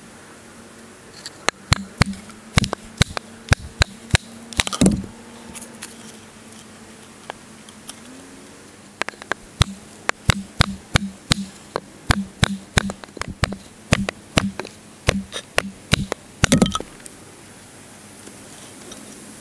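Large fixed-blade knife cutting into a wooden stick to carve a point: quick, sharp cutting strokes, about two or three a second. A short run ending in a longer drawn-out cut is followed by a pause of about four seconds, then a longer run that ends the same way.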